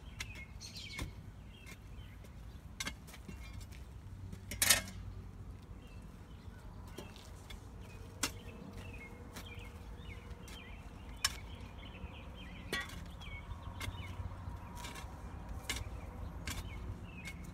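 Irregular sharp knocks and clicks of hand tools digging and cutting around roots in soil, with one louder strike about five seconds in. Faint bird chirps sound behind them.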